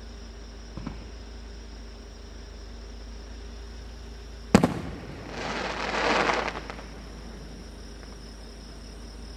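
A fireworks shell bursting with a sharp bang about halfway through, followed by about a second and a half of crackling that swells and fades. A fainter thump sounds about a second in.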